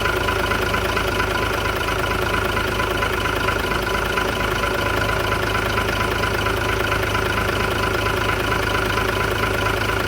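Isuzu truck engine idling steadily during a gearbox oil-pressure check, with a steady high whine over the engine note.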